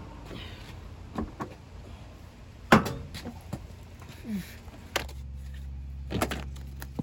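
Knocks and thumps of a Land Cruiser's front seat being lifted out through the door opening, with one loud thump about three seconds in and a few more knocks after it.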